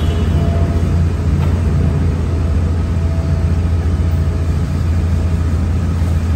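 A steady low engine rumble, as of a vehicle idling, with a faint thin tone above it.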